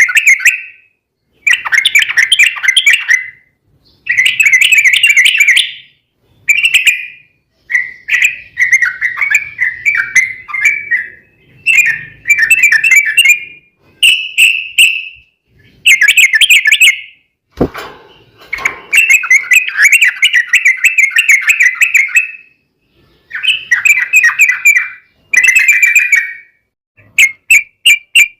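Yellow-vented bulbuls (trucukan) singing loud, bubbling, chattering phrases one after another, in the rapid back-and-forth 'ropel' style of a song duel. A sharp click comes a little past halfway, and near the end there is a quick run of short notes, about five a second.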